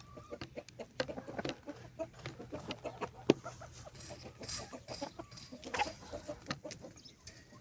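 Chickens clucking among many short clicks and taps, with one sharp knock about three seconds in and a faint low hum underneath.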